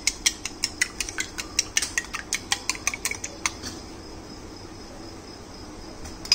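Metal spoon beating eggs in a ceramic bowl: quick, even clinks of the spoon against the bowl, about five a second, stopping about three and a half seconds in.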